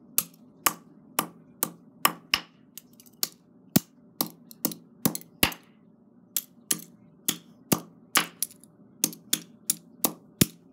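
Hammer striking plastic earbuds on the floor again and again, smashing them: sharp knocks about two to three a second, irregular, with a brief pause about halfway through.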